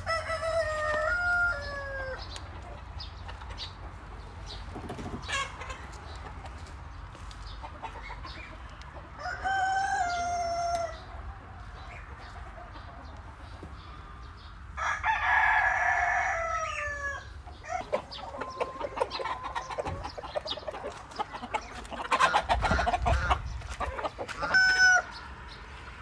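Rooster crowing several times, each crow a long call that falls in pitch at the end. Between the crows there is a steady low hum, and near the end a few seconds of scuffing and clicking.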